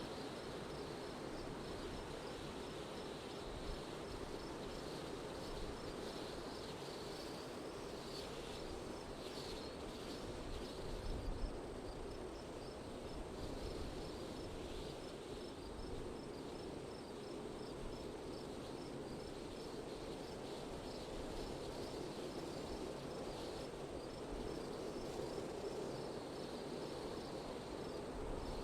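Steady wind noise with insects chirping in a fast, even series high above it.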